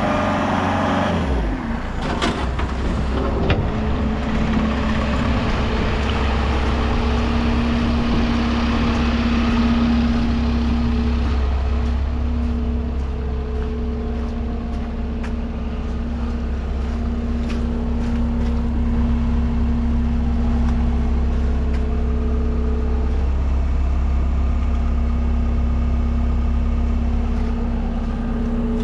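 ASV VT70 compact track loader's diesel engine running at a steady speed, with a steady whine over the low engine hum. Occasional short clicks and knocks sound over it, and the engine note shifts about a second and a half in.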